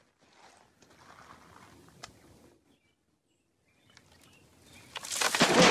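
Faint outdoor background, then about a second of silence. Near the end comes a loud splash and churning water as a child falls off a log into a creek.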